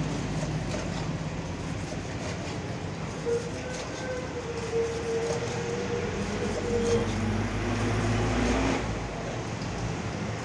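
Heavy knife strokes cutting shark steaks on a wooden chopping block, heard as faint repeated knocks. Behind them is a steady rumble of motor traffic, with an engine growing louder and rising in pitch from about the middle to near the end.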